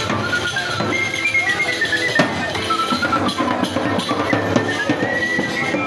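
Sicilian folk music played live: a small wooden flute plays a high, wandering melody over tambourine beats and accordion.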